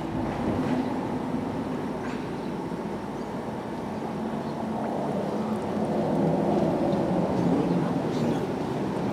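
Backhoe loader's diesel engine running steadily, growing louder from about five seconds in.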